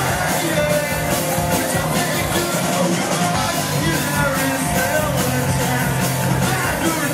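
Live rock band playing: electric guitars, bass and drums, with a singer's voice over them.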